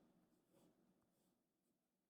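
Near silence: faint room tone fading out.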